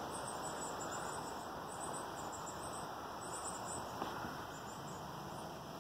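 Steady low hum of a honey bee swarm in flight, with faint high chirps from insects over it and one soft tick about four seconds in.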